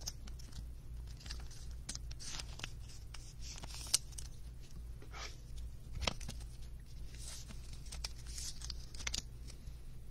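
A trading card being slid into a rigid clear plastic holder: short dry swishes and scrapes of card against plastic with a few sharp clicks, about four and six seconds in. A low steady hum runs underneath.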